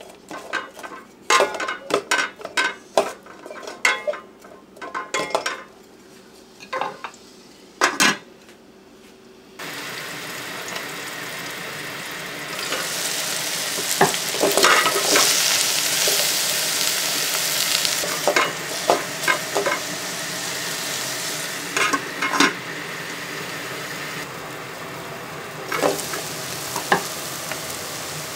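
Wooden spoon knocking and scraping around a rice cooker's metal inner pot as sliced onion, green pepper and garlic are stirred in hot oil. About ten seconds in, a steady sizzle of the vegetables frying starts and grows louder, with spoon knocks continuing over it.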